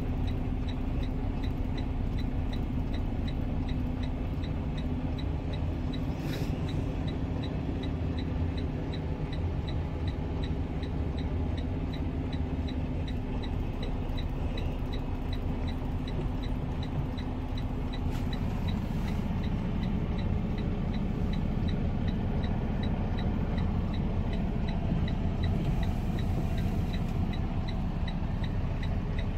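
Semi truck's diesel engine running at idle, heard inside the cab as a steady low rumble, with a faint regular ticking about twice a second. The engine note changes about eighteen seconds in.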